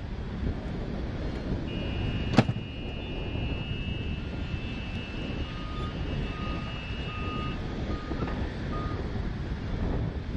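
Steady outdoor airfield background with wind on the microphone. A single sharp click comes about two seconds in, a faint steady high tone runs for several seconds, and a run of about six short beeps follows in the second half.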